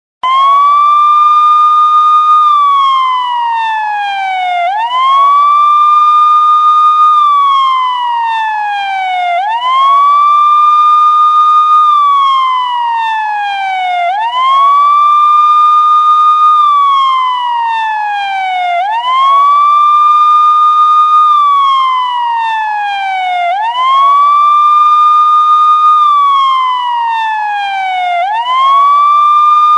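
Police car siren sounding a slow wail. Each cycle rises quickly, holds high for about two seconds, then slides steadily down, repeating about every four and a half seconds.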